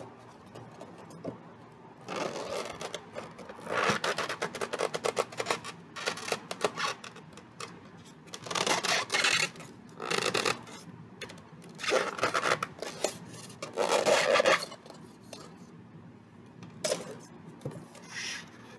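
Polystyrene foam packing insert rubbing and scraping against a plastic toy microscope as it is worked free by hand, in repeated bursts starting about two seconds in.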